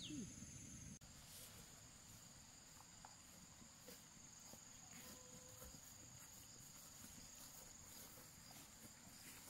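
Faint, steady high-pitched chirring of insects, such as crickets, with a few small ticks.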